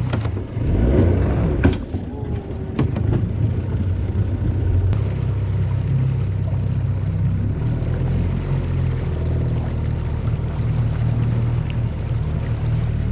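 Motorboat's outboard engine running underway, a steady low drone with water and wind noise over it. There are a few sharp knocks in the first three seconds.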